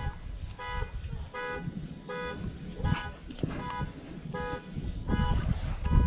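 A short, flat honk repeating evenly about every three quarters of a second, over a low rumble of wind.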